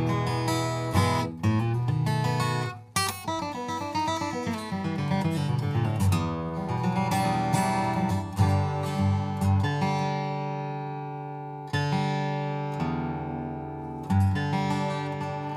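Boucher BG-152-G dreadnought acoustic guitar, with an Adirondack spruce top and Madagascar rosewood back and sides, strummed and picked in tune. Busy chord strumming with single notes gives way, after about ten seconds, to chords left ringing and fading, with a couple of fresh strums near the end.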